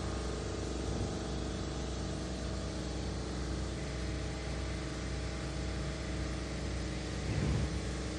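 A steady engine or motor drone, even in level, with a couple of faint knocks near the end.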